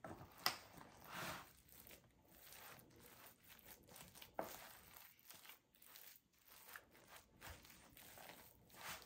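Faint scraping and crinkling of a spatula and hands pressing soaked bread stuffing into a disposable aluminium foil pan, with a few short sharp ticks from the thin foil.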